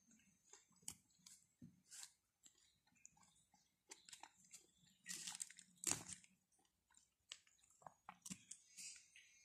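Faint eating sounds: paratha being torn apart by hand and chewed, a scatter of small clicks and rustles that is loudest about five to six seconds in.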